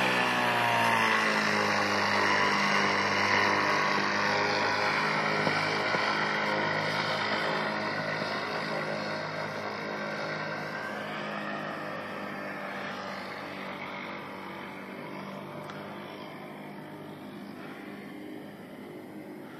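Powered paraglider's engine passing overhead. Its pitch drops about a second in, then it runs steadily and fades as the paraglider flies away.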